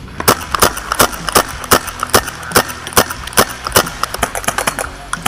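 Paintball markers firing a rapid string of sharp pops, about two or three a second.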